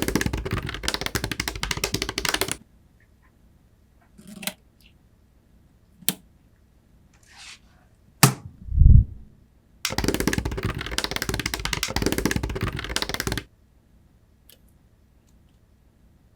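Rapid mechanical clicking in two spells, with a few single clicks between them and one short low thud in the middle.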